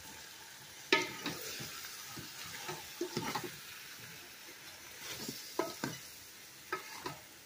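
Chicken pieces in turmeric sauce stirred with a spatula in an electric rice cooker's pot: irregular scrapes and knocks against the pot, the sharpest about a second in, over a steady faint sizzle.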